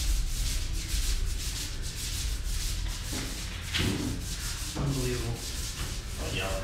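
Paint roller rolling wet paint onto a wall, a steady rubbing hiss.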